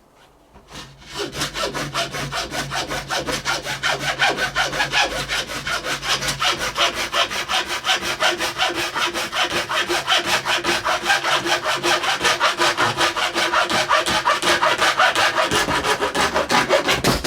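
Handsaw cutting with quick, even back-and-forth strokes, starting about a second in and stopping at the end.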